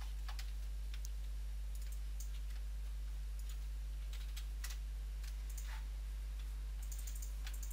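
Steady low electrical hum, with a few faint scattered clicks.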